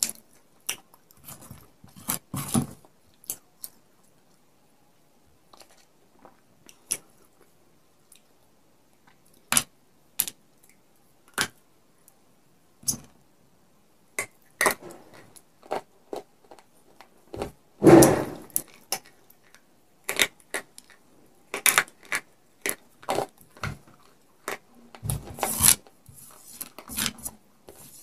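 A baked clay cup coated in white khadi clay paste being snapped apart by hand and bitten: scattered sharp cracks, clinks and crunches, the loudest a little past the middle.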